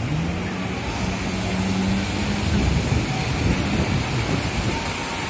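Yamaha jet ski engine running in the surf. Its note rises just at the start, holds steady for a couple of seconds, then wavers and breaks up, over a steady wash of surf and wind.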